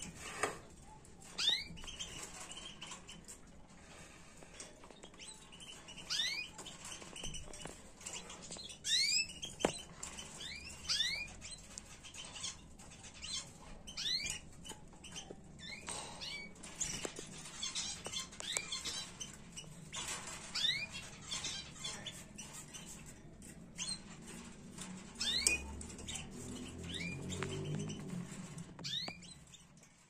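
Caged canaries giving scattered short chirping calls, each a quick sweep in pitch, rather than a sustained song. Light taps and fluttering come from the birds moving about the cage, and a low rumble rises near the end.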